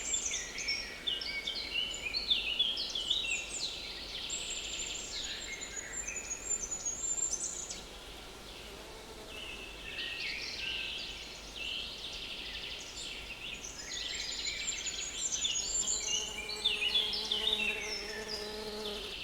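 Several small woodland birds singing at once, their songs overlapping, with a short lull partway through. A fly buzzes close to the microphone for the last few seconds.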